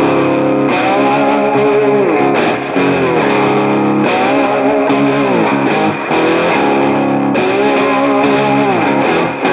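Background music: a distorted electric guitar playing a riff that repeats every couple of seconds, with notes sliding down in pitch.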